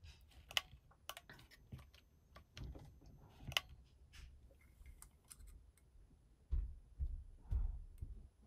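Faint, scattered clicks and light taps of a handheld infrared thermometer and thermometer probes being handled, with a few dull bumps about two seconds from the end.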